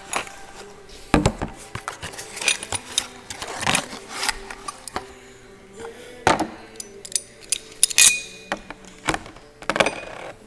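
Exhaust pipe and muffler parts being handled and test-fitted: a series of sharp metallic clanks and clinks, the loudest about eight seconds in.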